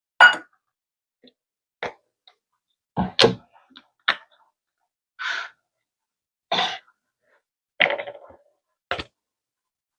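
A series of separate knocks, clicks and brief rustles from kitchen containers and utensils being handled on a counter, roughly one every second, with a heavier thunk about three seconds in.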